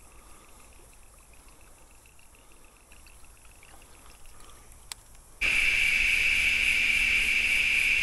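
Cicadas calling in a loud, steady, high-pitched buzzing chorus that starts abruptly about five seconds in, after a few seconds of faint ambience.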